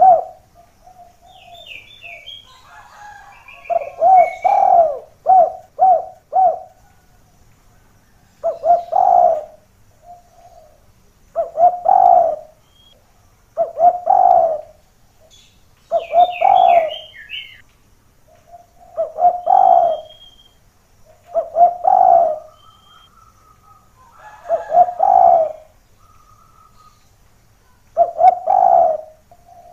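Spotted doves (derkuku) cooing: short phrases of low, rolling coo notes repeat about every two to three seconds. Small birds chirp higher and fainter in between.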